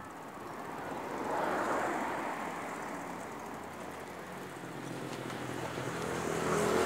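Street traffic noise from passing vehicles. It swells about a second and a half in and builds again near the end, where a low engine hum comes in.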